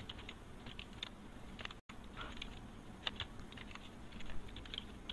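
Computer keyboard keys clicking in quick, irregular runs of typing. The sound cuts out completely for a moment about two seconds in.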